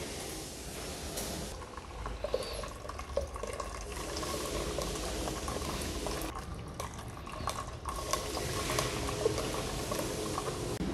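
Steel spoon stirring and pressing tomato purée through a metal mesh strainer: wet sloshing of thick liquid with scattered small scrapes and taps of metal on the mesh.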